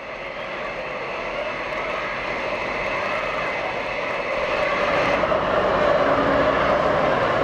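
A steady mechanical drone that fades in from silence and grows gradually louder, with a strong low hum underneath.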